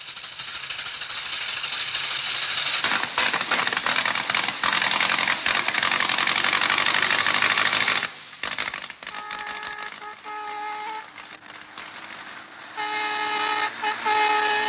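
Laid-on film soundtrack: a loud, dense rattling hiss for the first eight seconds or so, then music with held notes from about nine seconds in.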